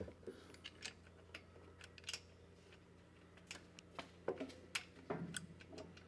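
Faint, irregular light clicks and taps of metal parts and hydraulic hoses being handled and positioned while a loader control valve is fitted, with a small cluster of knocks near the end, over a faint steady low hum.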